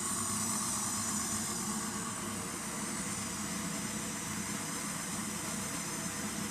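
Steady mechanical hum with a hiss, unchanging throughout.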